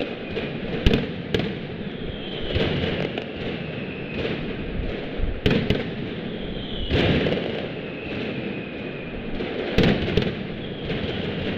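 Mascletà firecrackers going off in a dense, continuous barrage, with louder single bangs about a second in, around the middle and near the end. Several whistling fireworks cut through it, each whistle sliding down in pitch.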